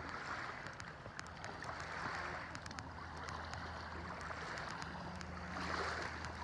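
Shallow water sloshing and splashing around a child's legs as he wades, swelling and fading every couple of seconds over a low steady hum.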